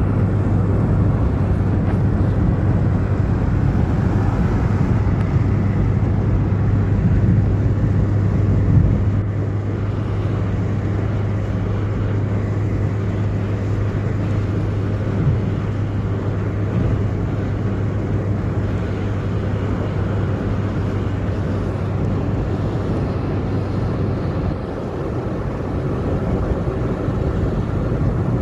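Steady engine and road noise heard from inside a vehicle cabin at motorway speed, with a low drone that stops near the end.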